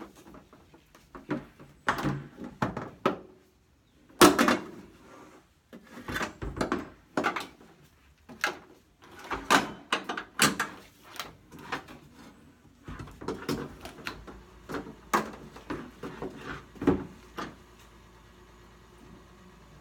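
Irregular clunks, knocks and rattles of gear being handled in a cargo van's bare metal load space, as a hose and a tie-down strap are moved around a tank. The loudest is a hard knock about four seconds in, and the handling grows quieter near the end.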